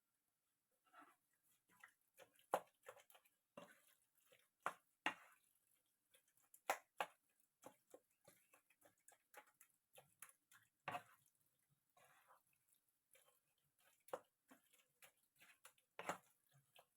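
Scattered light clicks and taps of a spoon against a dish, with a few soft squishes, while mashed garlic is mixed into chopped grilled eggplant, peppers and tomato.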